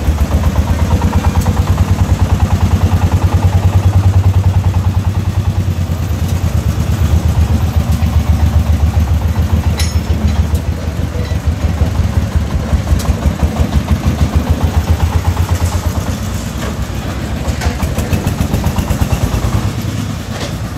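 Công nông farm truck's single-cylinder diesel engine chugging with a fast, even thump as the truck drives off. It is loud at first and grows weaker over the last few seconds as the truck pulls away.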